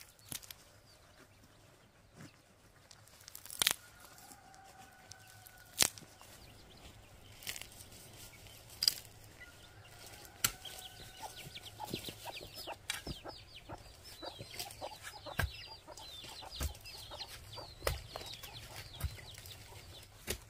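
Chickens clucking as they forage, with a busy run of high chirps through the second half. Several sharp knocks stand out, the loudest a few seconds in.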